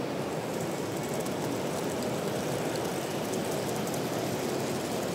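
Steady, even background noise of a trade-fair exhibition hall, with a model train running on the layout's track.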